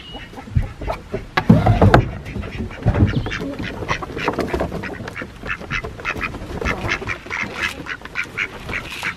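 A few loud wooden knocks about a second or two in as the coop door is opened. Then a flock of ducks quacks busily in many short, rapid calls, mixed with chickens, as the birds come out of the coop.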